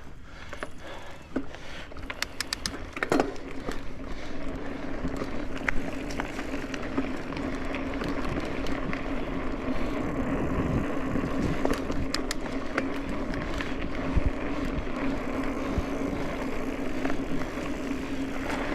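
Mountain bike being ridden: tyres rolling over the trail with a steady hum and scattered clicks and rattles from the bike over bumps.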